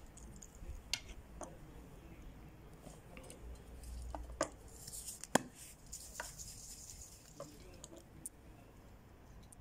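Faint clicks and knocks of a metal jet lighter being handled and set down on a wooden table, the sharpest knock about five seconds in. A soft high hiss runs for about two and a half seconds in the middle.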